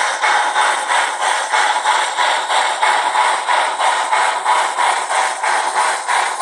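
Sound decoder of an H0 Rivarossi model of the Bavarian Gt 2x4/4 (class 96) Mallet steam locomotive playing steam-exhaust chuffs through its small on-board loudspeaker as it runs: an even, rapid beat of about three chuffs a second, thin and with little bass.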